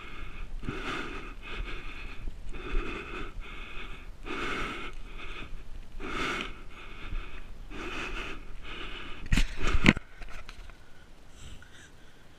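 A horse breathing hard under saddle, in rhythmic noisy blows roughly once a second. A few sharp knocks come just before ten seconds in, and the breathing is quieter after them.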